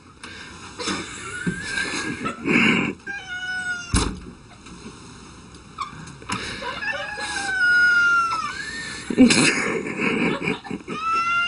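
A cat yowling in long, wavering, drawn-out calls. There is a sharp knock about four seconds in.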